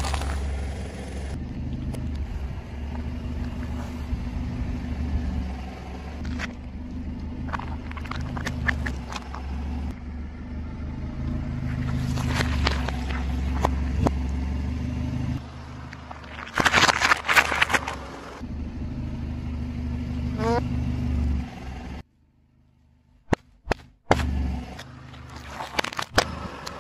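Car engine idling low and steady while the tyre rolls slowly over objects on asphalt, with scattered crackles and snaps as dry spaghetti breaks. Past the middle, a loud burst of crunching as the tyre crushes a row of lemons.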